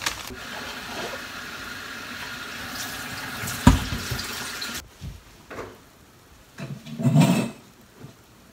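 Saucepan of dashi with dried bonito flakes at a rolling boil: steady bubbling that cuts off abruptly about five seconds in, with a heavy thump just before. Afterwards the bubbling is quieter, with a few louder bursts near the end.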